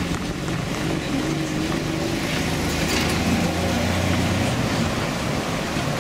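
Road traffic: cars and a light truck drive past with their engines running. A heavier engine note swells in the middle. Over it all is a steady rush of strong dust-storm wind.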